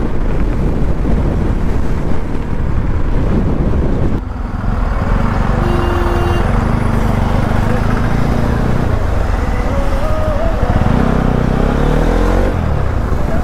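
Bajaj Pulsar NS200's single-cylinder engine heard from the rider's seat, first with wind rush at speed. After a cut about four seconds in, it runs in slow traffic, with a short horn note from the traffic and the engine revs rising near the end.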